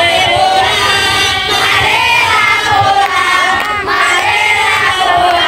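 A large group of young voices singing and shouting together in a loud, unbroken camp cheer chant.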